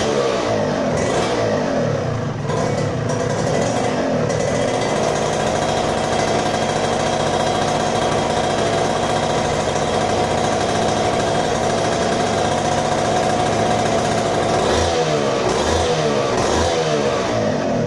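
Yamaha TZM 150's single-cylinder two-stroke engine running on the stand, blipped up and down in quick revs at first, then held at a steady speed, then revved again near the end. It is running again for the first time after ten years laid up.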